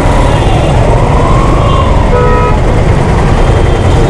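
Jammed city traffic: motorcycle engines idling close by with a heavy low rumble, a vehicle horn honking briefly about halfway, and a faint wailing tone that rises and falls in the first half.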